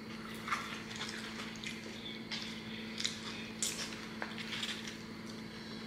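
Close-up wet chewing with lip smacks: irregular soft clicks and squishes of food being eaten, over a steady low hum.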